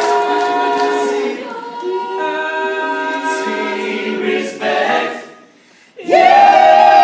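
All-male a cappella group singing held close-harmony chords, shifting to a new chord about two seconds in. The voices cut off briefly near the end, then come back in loud on a full chord.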